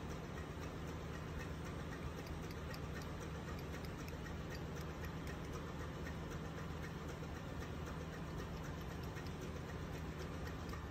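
Steady low machinery hum of a ship's engine room, with faint rapid ticking running through it.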